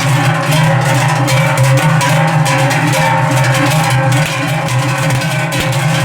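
Background music with percussion, continuous throughout.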